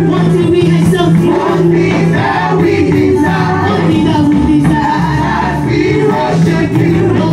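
Gospel choir singing with a band.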